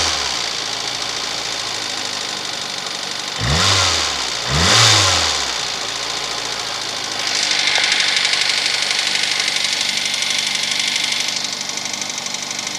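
Cold VAZ 2110 eight-valve engine idling with a rapid ticking knock, revved briefly twice about three and a half and five seconds in. The ticking grows louder for a few seconds after the second rev. This is a knock heard only on a cold engine that goes away when warm, which the owner links to the valves.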